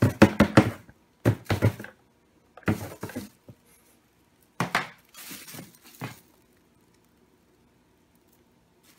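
Plastic dust bin of a robot vacuum being knocked and shaken over a plastic-bag-lined bucket to empty out its dust and debris, with the bag rustling. Several short bursts of clatter over the first six seconds, then near quiet.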